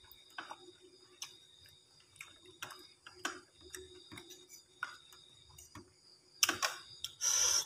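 Close-up eating sounds: irregular soft clicks and smacks of chewing a mouthful of mustard greens and bird's-eye chili, along with a fork and spoon working on the plate. Near the end come a couple of louder, noisier bursts.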